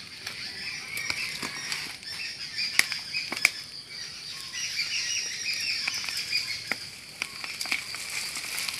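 Rustling and crackling of dry twigs and leaves as a fallen greater coucal's twig nest is reached for and lifted through bushes, with two sharp snaps about three seconds in. A steady high chirping runs behind it.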